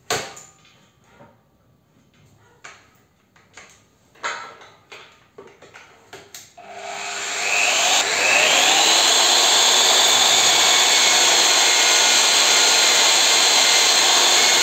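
Several separate knocks and clicks, then about seven seconds in a drill press motor spins up with a rising whine. It then runs steadily under load as a hollow annular cutter bores into a thick steel box-section tube.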